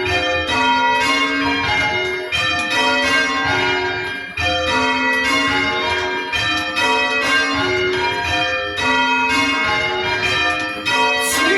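A ring of church bells rung full circle in change ringing: a steady, continuous succession of bell strikes in a repeating order, each note ringing on into the next.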